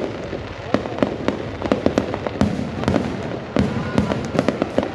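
Fireworks going off: an irregular run of sharp bangs and pops, several a second, over a continuous rumble.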